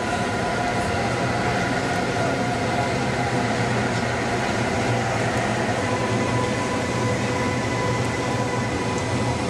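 Electric locomotive-hauled InterCity train running along the platform: a steady rumble of the train with a steady high whine over it.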